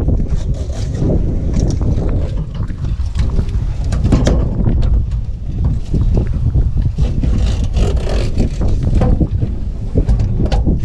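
Wind buffeting the microphone in a loud, uneven low rumble, with scattered knife scrapes and taps as a wahoo is filleted on a metal cleaning table.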